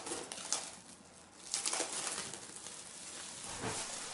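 Plastic cling film being peeled off a glass bowl and crumpled by hand, crinkling and crackling in several bursts.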